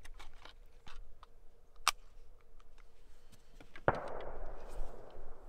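A distant gunshot from a neighbouring property about four seconds in: one big boom, a sharp report followed by a rolling echo lasting over a second. Before it come light clicks and a sharper knock, from a rifle being handled on the shooting bench.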